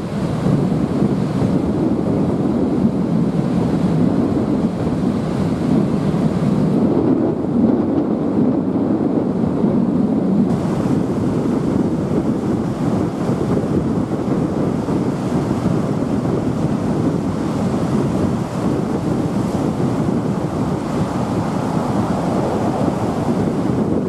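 Steady rush of river white water churning through rapids, with wind buffeting the microphone.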